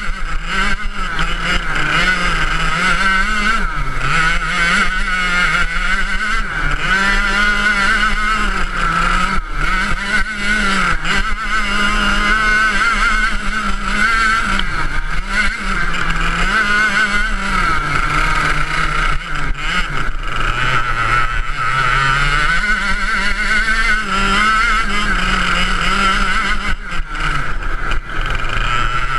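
Ice racing kart's engine, close to the onboard camera, running hard at high revs and dropping in pitch for a moment several times before climbing again, as the driver lifts for corners and accelerates out.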